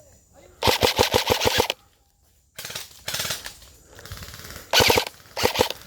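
Airsoft gun firing in rapid full-auto bursts of evenly spaced sharp clacks. The first burst lasts about a second and the later ones are shorter.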